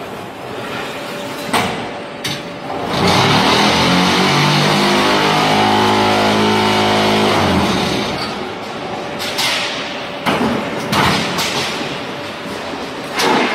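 QT6-15 automatic unfired-brick (concrete block) making machine running its moulding cycle: loud metal clanks and knocks over a steady mechanical din, with a hum that rises in pitch and holds for about four seconds in the middle before cutting off suddenly.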